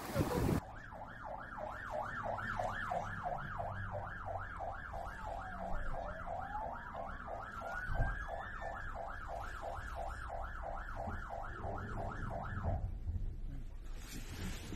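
Police siren sounding a fast yelp, sweeping up and down about three times a second, with a second slower siren tone gliding down and then up through the middle. The siren stops shortly before the end.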